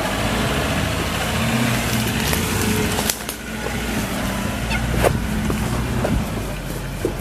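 Diesel engine of an Iveco EarthCruiser 4x4 truck running steadily at low revs as it crawls over rocks, with a few sharp knocks and clicks about three, five and six seconds in.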